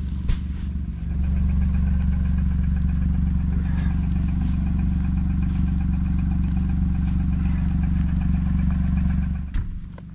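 An engine running steadily, a low, even hum that cuts off about nine and a half seconds in, with a short knock near the start.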